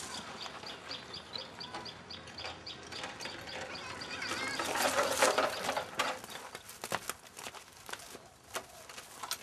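Outdoor rural ambience with chickens clucking and birds calling in the background. A few sharp clicks or knocks come in the last few seconds.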